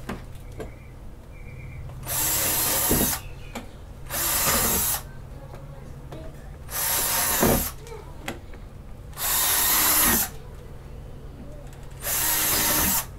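Cordless drill with a quarter-inch bit boring holes through the floor of a plastic storage tote. Five short bursts of drilling, each about a second long, come one to two seconds apart.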